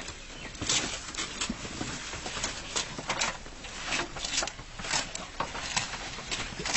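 Goats in a pen: irregular rustling and clicking, several short sounds a second.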